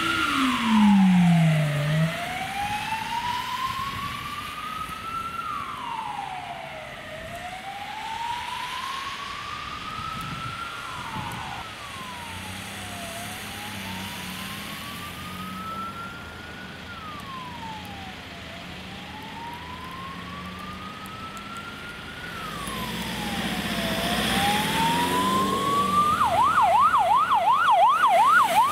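Emergency vehicle siren on a slow wail, each cycle rising over about five seconds and falling back quickly. Near the end it switches to a fast yelp and grows louder, with road noise from tyres on slush rising with it.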